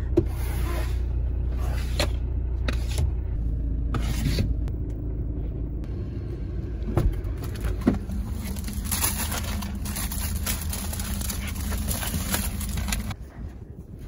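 Steady low rumble of a car heard from inside its cabin, with a few sharp knocks and a hissing stretch; the rumble drops away about a second before the end.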